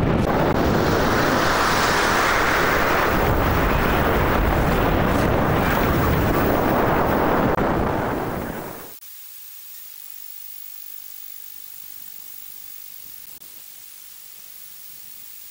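Strong wind buffeting the microphone over breaking waves and spray on a lifeboat deck in stormy seas, a loud, dense rush. About nine seconds in it cuts off suddenly to a steady faint hiss.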